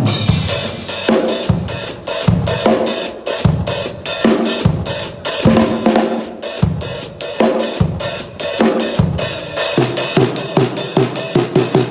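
Drum kit played in a steady beat, with bass drum, snare and cymbals. About ten seconds in, a fast run of short low notes comes in under the hits.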